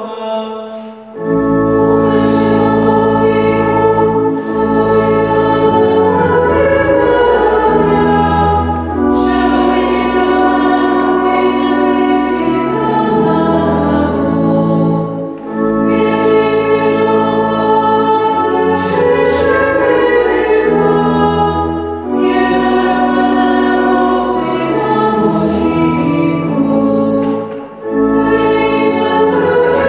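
A hymn sung with church organ accompaniment: held organ chords with a bass line under the voices, the singing in phrases with brief breaks between lines.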